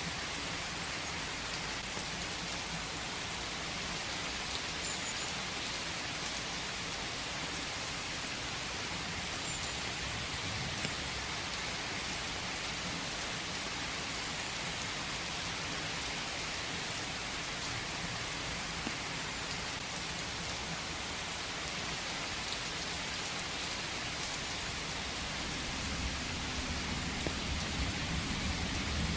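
Steady rain falling in a forest, an even hiss with scattered drop ticks. A low rumble swells near the end.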